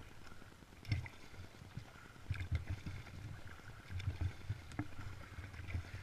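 Double-bladed paddle strokes splashing and dripping beside an inflatable packraft, with low knocks from the water and paddle against the raft. Heard from a camera mounted on the raft, with a stroke about every second and a half.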